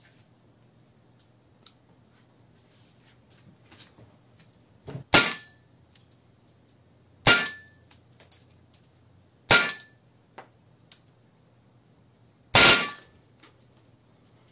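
KWC Beretta M92 (92A1) CO2 gas-blowback airsoft pistol firing four shots two to three seconds apart, each a sharp crack with the slide cycling, with small handling clicks between shots.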